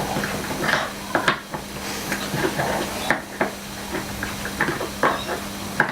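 A coin turning the screw of a GoPro bodyboard plug mount: irregular small clicks and scrapes of metal on the screw slot and plastic mount, with handling of the board.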